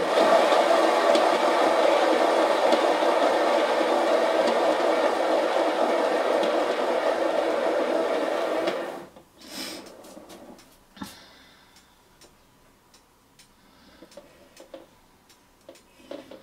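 Painting turntable spinning fast with a canvas on it, a steady whirring that stops abruptly about nine seconds in. Faint light clicks and taps follow.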